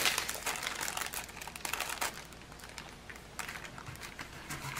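Clear plastic packaging crinkling and rustling under handling fingers: a quick run of small crackles and clicks that thins out after about two seconds.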